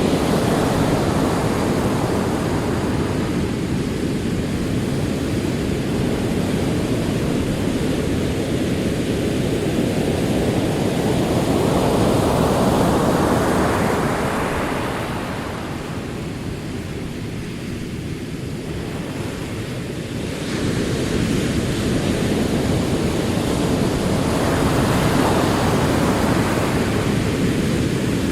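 Ocean surf: a continuous wash of waves rolling in, swelling and falling back every several seconds. It quietens past the middle, then comes back up suddenly about two thirds of the way through.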